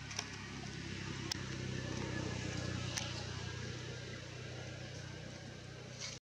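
A low, steady engine hum, as of a motor vehicle going past, swelling about two seconds in and fading again, with a few faint clicks; it cuts off suddenly near the end.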